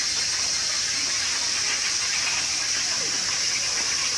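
Steady, high-pitched chorus of summer evening insects, running unchanged throughout.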